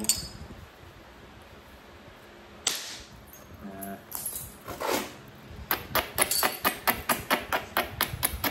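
An abrader stone rubbed back and forth along the edge of a chert flake to grind the striking platform, a quick even run of scraping strokes about five a second that starts a little past halfway through. Before that, a few single knocks and scuffs as the stone and billet are handled.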